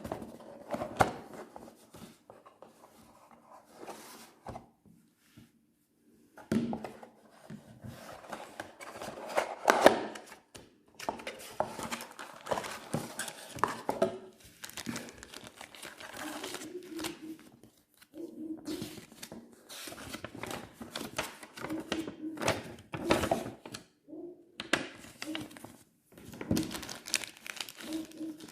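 A phone being handled: irregular rustling, clicks and knocks close to the microphone, broken by short silent gaps.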